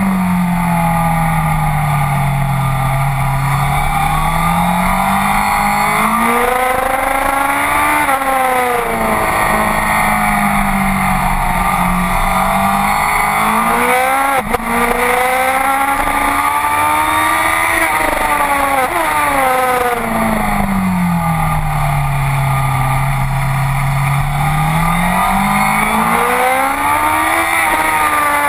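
Onboard sound of a Honda CBR sport bike's inline-four engine at track speed. The revs climb on the straights and drop away as the bike brakes and shifts down for corners, several times over, under a steady rush of wind noise. There is a brief sharp jolt about halfway through.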